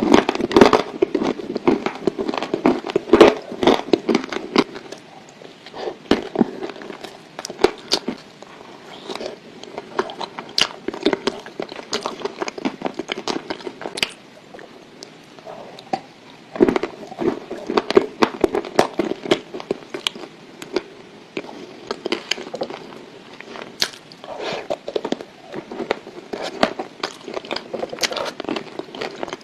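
Dry Ural clay being bitten and chewed, many sharp crunches and crackles coming in runs with a few short pauses between them.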